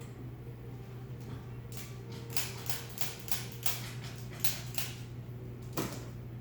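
Chiropractic activator adjusting instrument firing in a quick series of about ten sharp clicks, roughly three a second, then a single louder click near the end.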